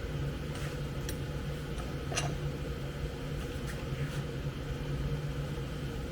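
A motor running steadily with a low hum, with a few light clicks scattered through it.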